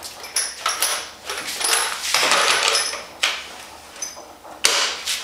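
Scattered clicks, rustles and light metal clinks of hands handling tools and parts at a workbench. The busiest stretch comes about two to three seconds in, and there is a sharp click near the end.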